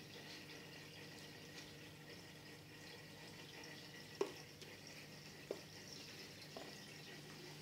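Aquarium aeration: a faint steady bubbling and trickling of water with a low steady hum. Two small sharp drips or plops land about four and five and a half seconds in.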